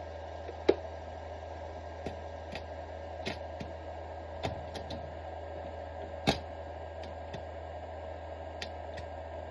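Scattered light clicks and two sharp knocks, one under a second in and one about six seconds in, over a steady low hum.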